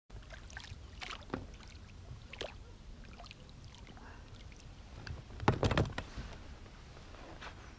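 Water splashing and sloshing in short bursts, with a louder burst of splashing about five and a half seconds in.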